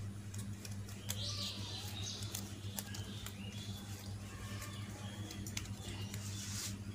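Shiny foil-printed paper being handled and folded by hand: light crinkles and small clicks, over a steady low hum, with a few faint high chirps.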